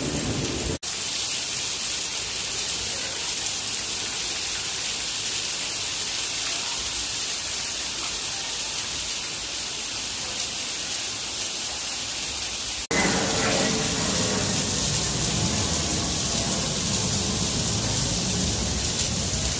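Steady rain falling, an even hiss strongest in the high range. About thirteen seconds in it cuts abruptly to a fuller, deeper rain sound.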